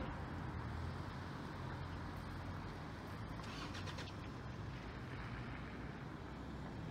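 Steady low rumble of distant road traffic, with a brief hiss about halfway through.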